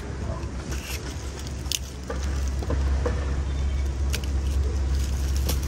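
Metal parts of a bike rack being unpacked and handled: scattered light clicks and knocks, with rustling packaging, over a steady low rumble that gets louder about two seconds in.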